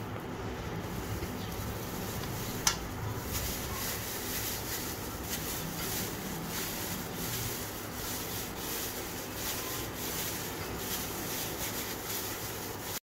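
Disposable plastic gloves crinkling and rubbing as hands squeeze and roll crumbly motichoor boondi mixture into a laddoo, in a steady run of soft rustles. A single sharp click sounds a little under three seconds in.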